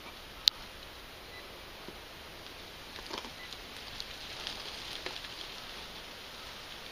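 Close handling noise from fingers turning a small dug-up object in front of the microphone: one sharp click about half a second in, then faint scattered rustling and scratching.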